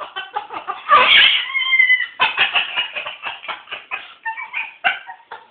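Moluccan cockatoo laughing in imitation of human laughter: a loud harsh squawk about a second in, a short held note, then a fast run of short laughing pulses that slows and stops near the end.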